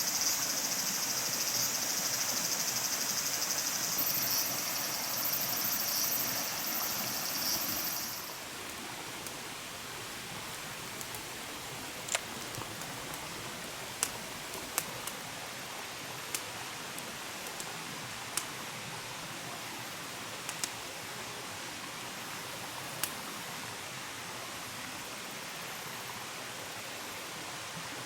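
Steady rushing background hiss like a nearby stream. A loud high-pitched buzz runs for the first eight seconds and stops suddenly, followed by scattered small clicks.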